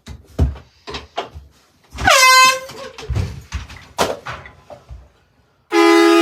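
Air horn blasting twice: a short blast about two seconds in that rises to pitch and holds, and another starting near the end. Scattered knocks and thumps come between them.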